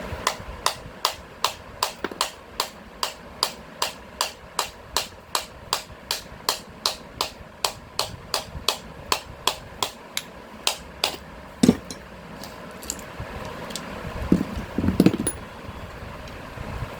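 Steady metal-on-metal tapping, like a hand hammer striking a part, about two sharp taps a second. The tapping stops around eleven seconds in with one heavier knock, and a few duller knocks follow near the end.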